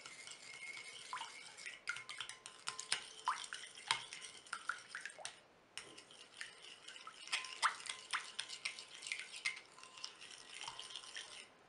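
Metal spoon stirring a milky liquid in a glass bowl: rapid clinks and scrapes of the spoon against the glass with the liquid sloshing, pausing briefly about halfway through.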